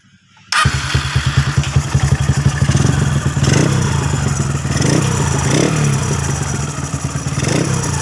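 Honda GL-family single-cylinder motorcycle engine running with a rough, rattling 'kresek-kresek' noise, starting about half a second in and blipped up in revs a few times. The rattle is an engine fault that is still to be located.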